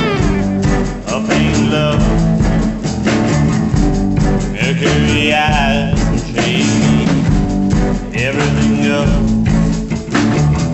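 Rock band music: guitar lines with notes that bend and slide in pitch over a steady low accompaniment.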